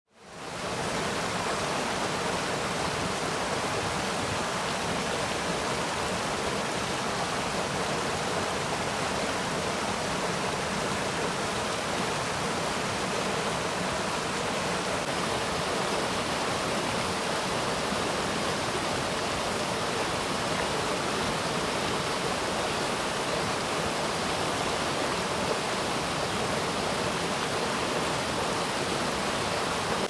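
A mountain stream running over a small cascade between boulders into a pool: a steady, even rush of water that fades in over the first second.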